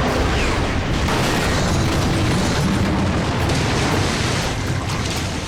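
A loud boom that starts suddenly and rumbles on steadily for about five seconds, like a big explosion in an action soundtrack.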